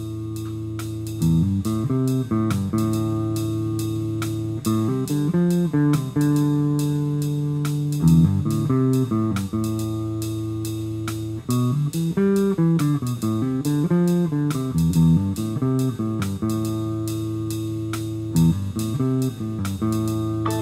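Instrumental background music: guitar over held bass notes, with a steady beat.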